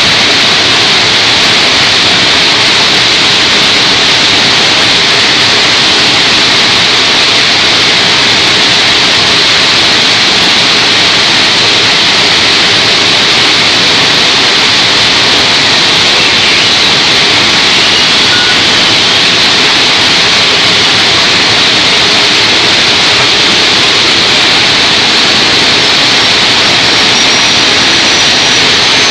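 Y81-160 hydraulic scrap-metal baler running: a steady, loud rushing noise that does not change, with a faint high whine coming in near the end.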